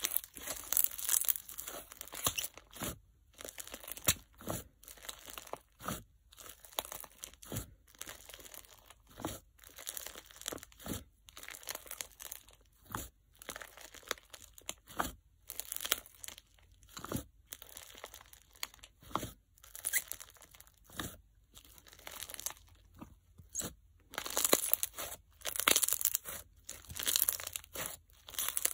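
Bingsu-bead and microbead crunch slime squeezed, poked and kneaded by hand, crackling and popping as the beads and trapped air are pressed. The crunches come in separate bursts about once a second, with faster, denser runs at the start and near the end.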